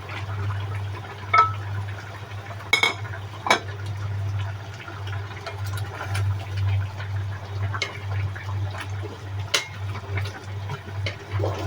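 Liquid bubbling in a pot of simmering beef tendon, with a few sharp clicks and knocks and a steady low hum.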